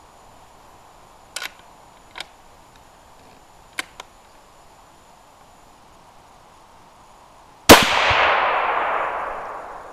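A few light clicks, then a single .308 Winchester rifle shot from a Savage Model 10 action with a 26-inch Shilen barrel, a sharp crack near the end followed by a long echoing decay of about two seconds.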